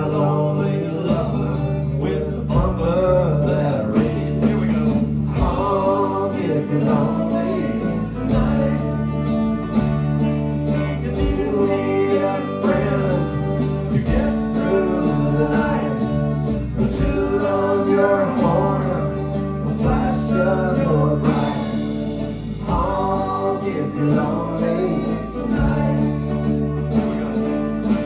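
Live band playing a country-tinged song, with singing over guitar and a bass line that changes note every second or two.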